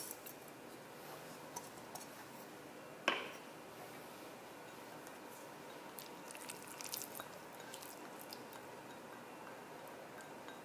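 Faint kitchen handling sounds: dry lupin flakes poured from a metal measuring cup into a glass bowl, with one sharp knock about three seconds in. Later, light clicks and soft scraping as mashed tofu is scraped from a small glass bowl with a spatula.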